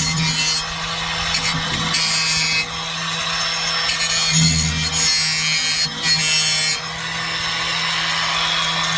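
Handheld power tool running steadily, with repeated rasping bursts, each under a second long, as it is pressed into the work.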